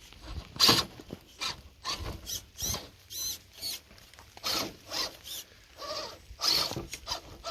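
RC crawler truck's electric motor and gears whining in short throttle bursts, with scraping as it creeps up a hill.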